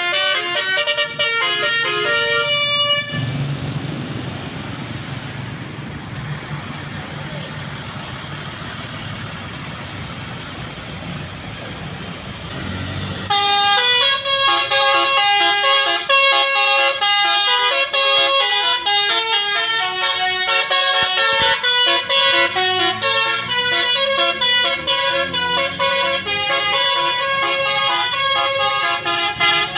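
Bus 'telolet basuri' multi-tone musical air horns play a melody in quick stepping notes, several tones at once. About three seconds in the horns stop and a stretch of engine and road rumble follows. About thirteen seconds in the horns start another tune and keep playing.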